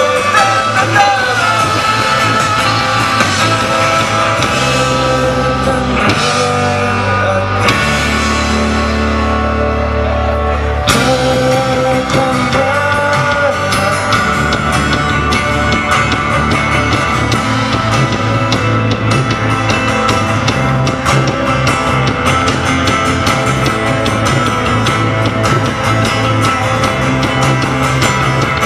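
Rock band playing live: guitars and drums at full volume. About six seconds in the high end thins out to a bass-heavy passage, and about eleven seconds in the full band with cymbals comes back in at once.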